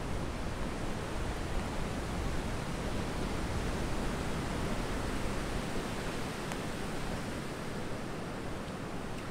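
Steady rushing noise of ocean surf washing onto the beach, with wind; the low rumble eases about six seconds in.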